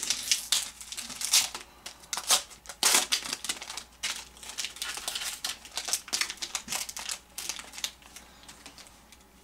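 Foil trading-card pack wrapper crinkling and cards being handled, a dense run of crisp rustles and clicks that thins out and dies away near the end.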